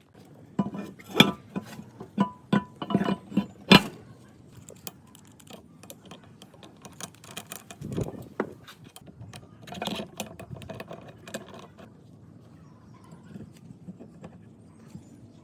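Metal parts clinking and knocking against each other, some strikes with a short ringing note. The strikes come thick and fast for the first four seconds, then give way to lighter, scattered tapping and clatter.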